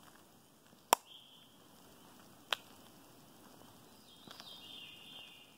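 Two sharp snaps about a second and a half apart, dry twigs breaking underfoot on a woodland walk, the first the louder. A faint high trill comes in near the end.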